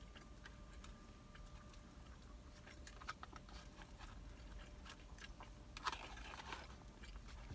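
A person chewing and biting food close to the microphone, with small crunches and wet mouth clicks scattered through, a couple of them louder about three and six seconds in.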